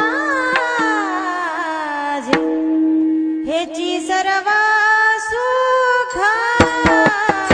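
A solo voice singing a Marathi devotional abhang in long, ornamented gliding phrases over a steady held drone, with occasional drum strokes. The voice drops out for about a second, a little over two seconds in, while the drone carries on, then comes back.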